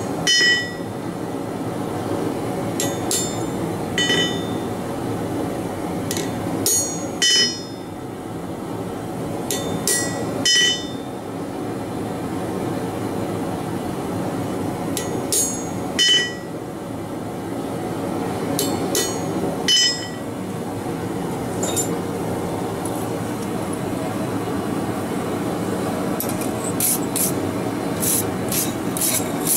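Hammer blows on a veining chisel cutting the veins of a hot forged leaf on the anvil, each strike a sharp metallic clink with a short ringing tone. The blows come singly, a second to several seconds apart, then a quicker run of lighter strikes near the end, over a steady rushing from the propane forge's burner.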